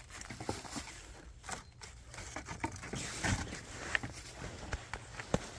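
Footsteps on woodland leaf litter with irregular crackles and snaps of dry twigs and branches being gathered and handled.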